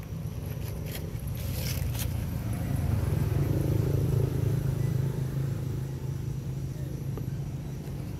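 Low rumble of a motor vehicle's engine, growing louder around the middle and easing off again, with a few faint clicks.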